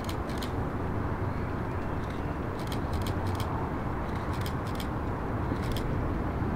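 Boeing C-17 Globemaster III's four Pratt & Whitney F117 turbofan engines at takeoff power as the jet lifts off and climbs out: a steady, deep jet rumble.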